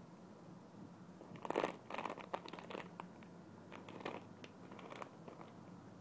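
Crinkling and rustling in irregular bursts as squishy toys are handled, loudest about a second and a half in.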